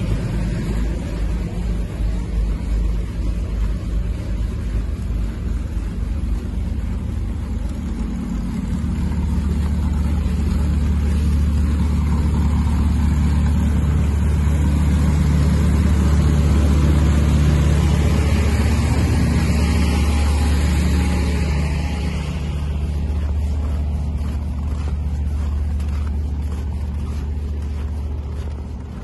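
Crawler tractor's engine running, a heavy steady low drone that grows louder about eight seconds in and eases off again after about twenty-two seconds.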